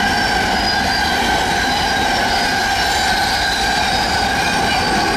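SBB express train's passenger coaches running past close by at speed: a loud, steady rush of wheels on rails with steady high-pitched ringing tones over it.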